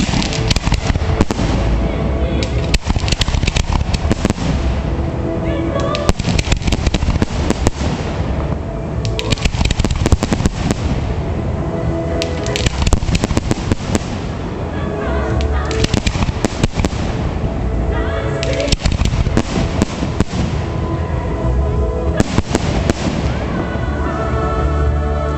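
Fireworks display: many bangs and crackling shells going off in quick succession over music.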